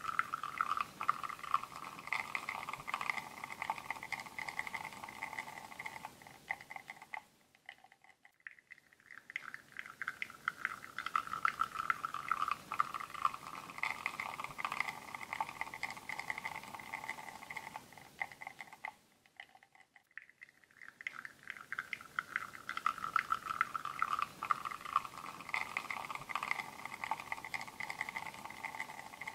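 Espresso running from a bottomless portafilter on a La Marzocco Linea Mini into a ceramic cup, a fine crackling, trickling patter. It fades away about seven seconds in and again near nineteen seconds, each time starting up again a couple of seconds later.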